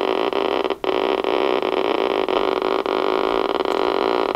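Galaxy DX 33 HML CB radio's speaker putting out a steady buzz, which cuts out briefly about a second in. It is the radio's intermittent fault, in which the speaker buzzes as the meter lamp flickers.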